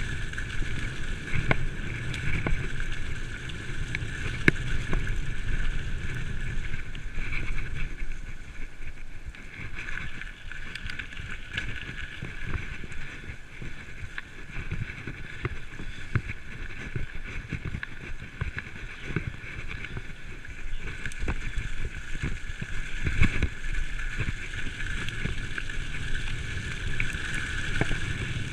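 Giant full-suspension 27.5-inch mountain bike riding fast downhill on a dirt trail: the tyres rumble over the ground, with frequent short knocks and rattles from the bike over bumps and roots, and wind noise on the microphone.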